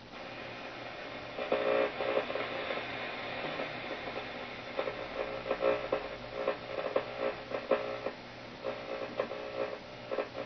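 Shortwave static from a Philco 38-7XX tube radio's loudspeaker as the dial is tuned across the band: a steady hiss with brief tones and faint signal fragments flickering in and out.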